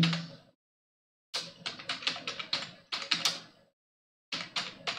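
Computer keyboard keys clicking as text is typed: a quick run of keystrokes from about a second and a half in, a short pause, then a few more keystrokes near the end.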